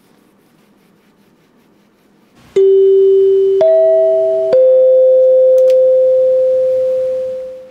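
A three-note chime: three clear ringing tones struck about a second apart, low, then high, then middle, each ringing on and fading out over a few seconds.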